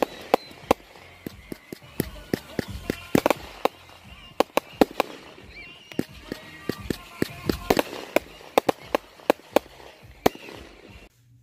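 Fireworks display: aerial shells going up and bursting, with dozens of irregular sharp bangs and crackling pops. The bangs stop suddenly near the end.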